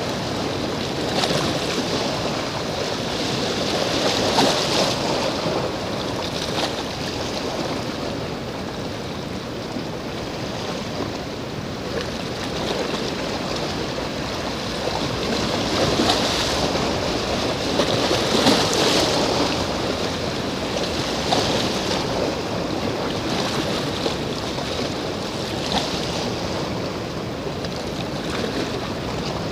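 Wind and small waves at the shoreline: a steady rushing noise that swells every few seconds.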